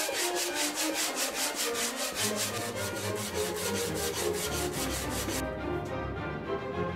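A wooden block is rubbed back and forth by hand on a sheet of sandpaper, a quick, even run of scraping strokes that stops suddenly about five and a half seconds in. Background music plays throughout.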